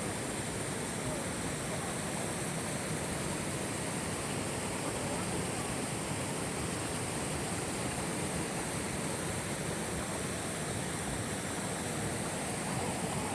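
Waterfall pouring into a river: a steady, unbroken rush of falling water.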